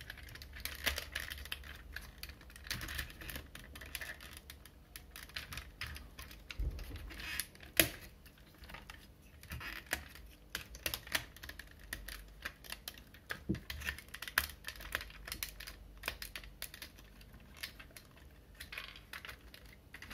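Hard plastic parts of a Night Ops Ratchet Transformers figure being shifted, folded and snapped into place by hand during its transformation to vehicle mode: many small scattered clicks and rattles, with one sharper snap about eight seconds in.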